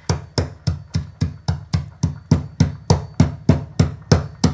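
Dry dog kibble being pounded with a heavy length of steel rebar, crushing the biscuits to powder: a steady run of quick thuds, about four a second.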